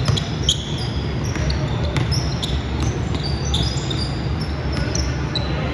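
Basketball game sounds: sneakers squeaking on the court floor in many short, high chirps, with the ball bouncing and a steady hum of voices in the hall.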